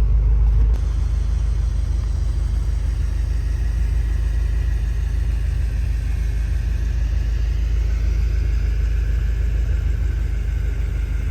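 Steady low rumble of the BMW M5 F10 on the move, engine and road noise, which drops a little, suddenly, about a second in.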